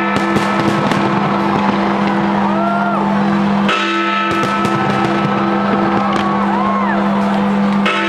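Fireworks display: many sharp bangs and crackles over loud music with sustained chords that change twice. A few short whistles rise and fall.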